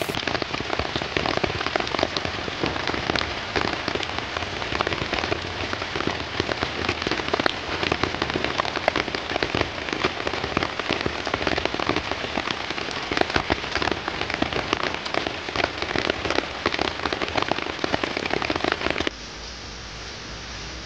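Heavy rain falling, a dense patter of drops hitting a surface. About nineteen seconds in it cuts to a quieter, steadier hiss.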